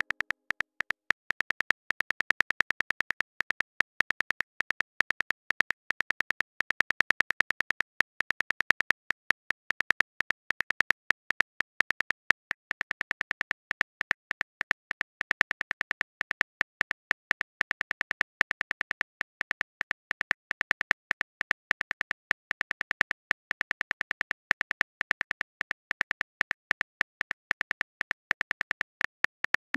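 Phone keyboard typing clicks from a texting-story app: a rapid, steady stream of short, identical clicks as a message is typed out.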